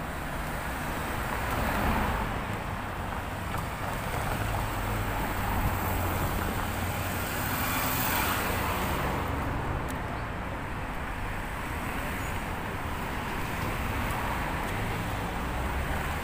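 Road traffic on a busy multi-lane street, cars passing and swelling louder about two seconds in and again around eight seconds, over a steady low rumble of wind buffeting the phone's microphone.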